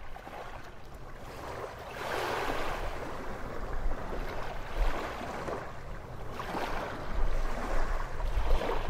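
Sea waves washing in, swelling about every two seconds, with a low wind rumble on the microphone.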